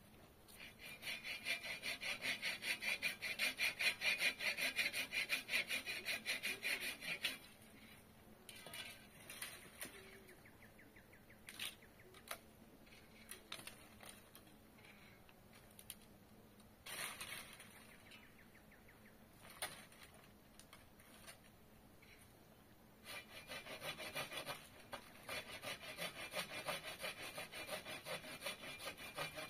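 Hand saw cutting wood in two spells of steady, rhythmic strokes, with a gap of scattered clicks and knocks in the middle.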